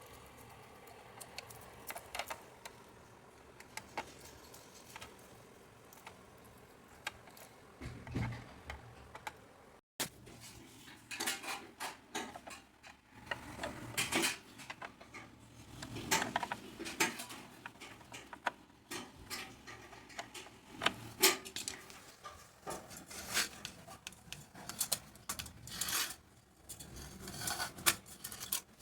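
Hard objects being handled: scattered clicks and clinks, sparse at first, then busier, more frequent clatter after a brief dropout about ten seconds in.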